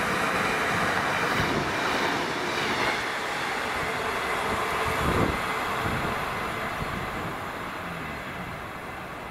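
A train passing along the line, its wheel and running noise loud at first and slowly fading away, with a low thump about five seconds in.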